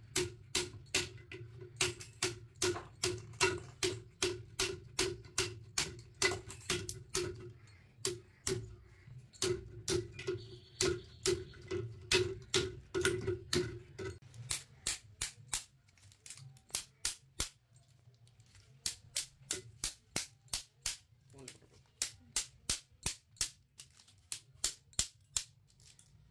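Metal striking metal in a steady run of sharp blows, about two a second, each with a short ring, as the steel laminations of an AC compressor's motor stator are knocked off its copper winding. About halfway through the blows thin out and come in short bursts.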